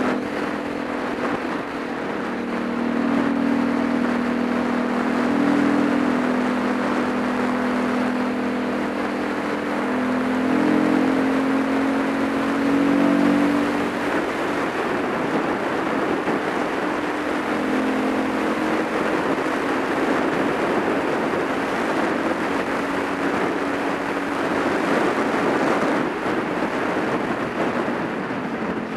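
Supermoto motorcycle engine running at a steady cruise under heavy wind rush on the microphone. The engine's hum is plain in the first half and sinks under the wind about halfway through, coming back only faintly.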